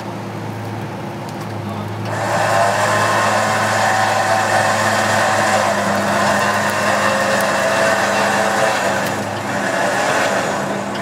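Nissan Frontier's V6 engine running low and steady, then put under load from about two seconds in as the truck crawls over the obstacle. It gets louder for about seven seconds and eases again near the end.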